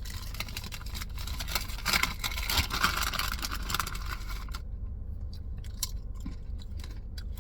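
A plastic snack bag crackling and a crunchy, popcorn-like puffed snack being bitten and chewed close to the mic. The dense crackle stops after about four and a half seconds, leaving a few soft chewing clicks over a steady low hum.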